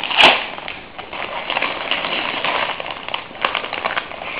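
Glossy gift wrap being torn open by hand and crinkled as a present is unwrapped, with one loud rip just after the start followed by continuous crackling and rustling of the paper.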